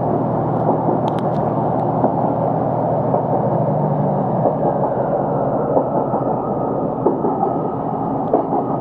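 A passenger train running, heard as a steady rumble with a low hum that fades out about four and a half seconds in.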